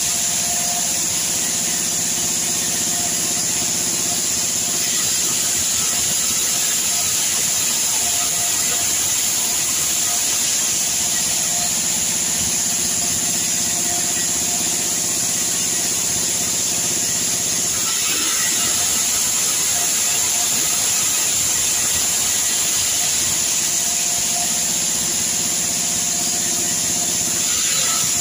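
Sawmill band saw running and sawing red sengon timber into boards: a steady, high hiss from the blade, with a lower motor hum that swells and fades several times as the cuts go on.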